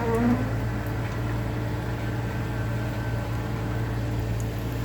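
1974 Ford F-250's 4.9-litre (300 cubic inch) straight-six idling steadily on the electric choke's high idle, just after a cold start in freezing weather.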